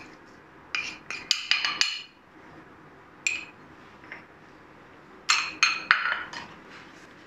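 Small glass bowl clinking and knocking as rice flour is tapped out of it into a bowl of marinated chicken. A quick run of sharp clinks comes about a second in, a single one after three seconds, and another cluster past five seconds.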